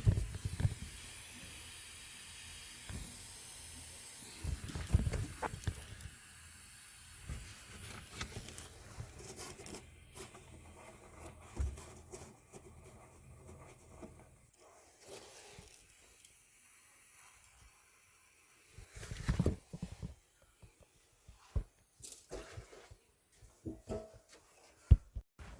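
Steady hiss of tracer gas escaping from a leaking PB water pipe for about the first ten seconds, fading after, then scattered knocks and scrapes of hand work at the pipe.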